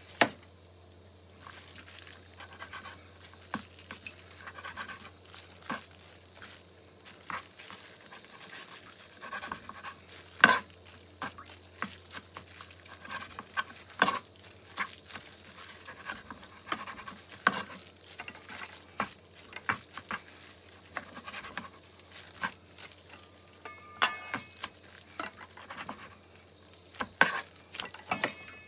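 Knife slicing raw meat on a plastic cutting board: irregular knocks of the blade on the board and handling of the slices as they are moved into a stainless steel mixing bowl, over a faint steady low hum.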